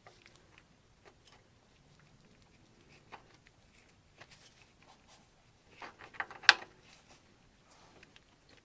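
Faint scattered clicks and scraping of an aftermarket ball joint being worked by hand into its housing on a 2006 Polaris Sportsman 700, with a short cluster of clicks about six seconds in and a sharp click at about six and a half seconds, the loudest sound.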